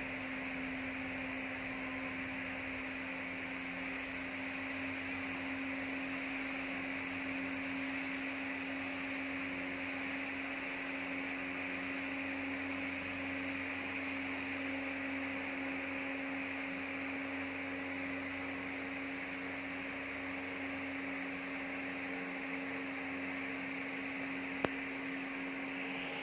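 Steady electrical hum from a running solar inverter and Ashapower MPPT charge controller carrying about 930 watts of load, one fixed low tone with a hiss above it. A single sharp click near the end.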